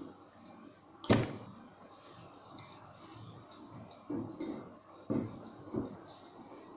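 Sharp clicks and knocks of hands and tools working a screw into a wine bottle's cork: one loud click about a second in, a short clatter around four seconds, then two knocks a little over half a second apart.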